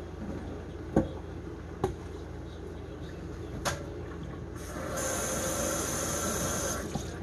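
A few light knocks, then water running from a kitchen tap for about two seconds as a raw pork roast is rinsed under it.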